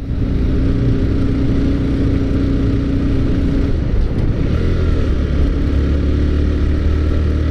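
Honda CBR150's single-cylinder four-stroke engine running under way, heard from on the bike. Its note holds steady, then drops to a lower pitch about four seconds in.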